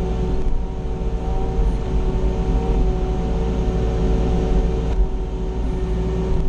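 Mini excavator's diesel engine and hydraulics running steadily, heard from inside the cab, a low rumble with a steady whine over it as the machine swings.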